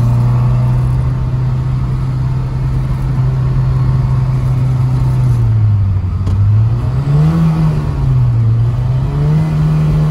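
Lancia Fulvia's narrow-angle V4 engine heard from inside the cabin, running at a steady pitch while cruising. About halfway through the revs fall, climb, fall again and climb back up, settling a little higher.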